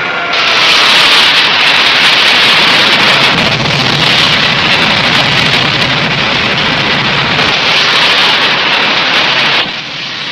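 Missile launch: a loud, steady rushing blast of rocket exhaust that sets in sharply just after the start and cuts off abruptly near the end.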